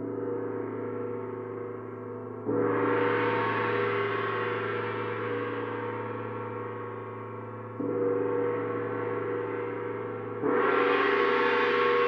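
Large planet-tuned gongs played slowly: four strokes, each starting suddenly and ringing on into the next, so the tones overlap in one continuous wash. The second and fourth strokes are louder and brighter than the others.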